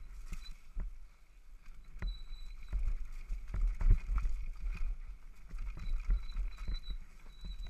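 Downhill mountain bike (a Devinci Wilson) rattling over a rough dirt trail at speed, with repeated knocks from bumps, the loudest nearly four seconds in. Low wind rumble on the microphone underneath.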